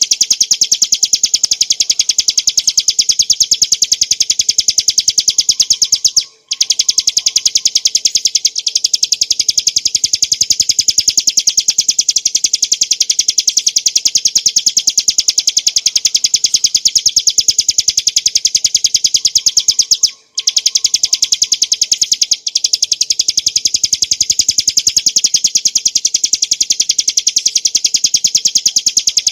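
Ciblek gunung (Prinia familiaris montana, a small prinia) singing a continuous, rapid rattling trill of evenly spaced high notes, the 'ngebren' style. It breaks off briefly twice, about 6 and 20 seconds in.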